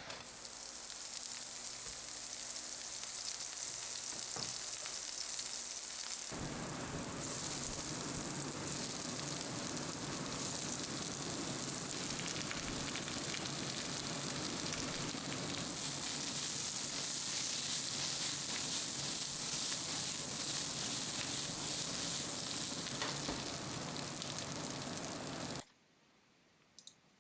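Food frying in hot oil, a steady dense sizzle that grows fuller about six seconds in and cuts off suddenly near the end.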